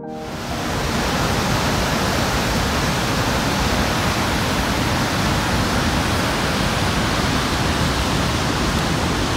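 Large waterfall pouring over a rock lip into a canyon: a loud, steady rush of falling water that swells in over the first second.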